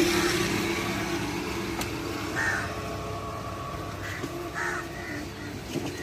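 Crows cawing: several short caws from about two and a half seconds in, over the low hum of a passing road vehicle that fades away in the first seconds.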